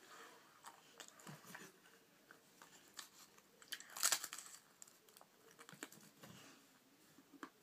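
Dry crackers being bitten and chewed fast, a scatter of quiet crackly crunches with the loudest burst about four seconds in as a cracker is broken into the mouth.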